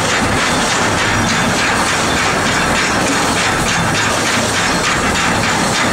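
Chain lift of a wooden boat chute ride clattering steadily as it hauls a boat up the lift hill, with regular clicks over a constant hiss.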